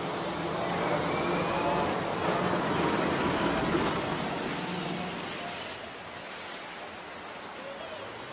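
An amphibious assault vehicle's diesel engine running as the vehicle drives off a ship's stern ramp into the sea, with water rushing and churning around it. The sound swells over the first few seconds, then fades as the vehicle pulls away.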